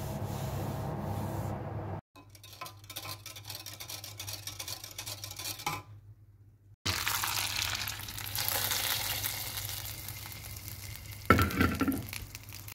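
A spoon stirring a drink in a glass jug, clicking and clinking against the glass, then food sizzling and bubbling in a steel pot on the stove, with a short clatter near the end.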